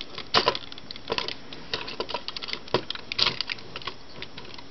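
Hard plastic parts of a Transformers Landfill combiner toy clicking and clattering as they are handled, pulled apart and fitted back together: a run of irregular sharp clicks with no steady rhythm.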